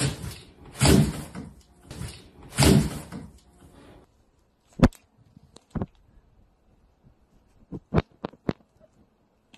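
Two loud, noisy thuds or rustles in the first few seconds, then near silence broken by scattered sharp clicks and taps, the crinkle of a bag stuck over a cat's head and the cat's steps on a wooden floor.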